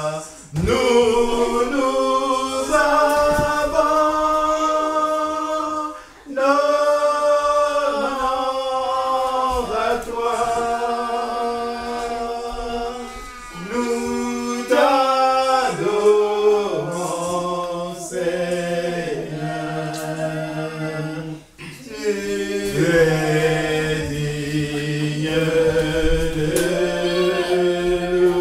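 Unaccompanied worship singing by voices in a small room, long held notes in slow phrases, with short breaks for breath about six seconds in and again past two-thirds of the way through.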